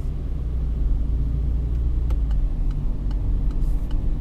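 Cabin noise of a Peugeot 208 with the 1.6 engine and automatic gearbox, gaining speed gently at low city speed: a steady low rumble of engine and tyres, with a few light ticks around the middle.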